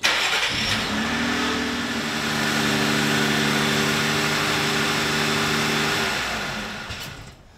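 Jeep Wrangler JL engine starting: a burst of starter cranking, then the engine catches about a second in and idles steadily before fading out near the end.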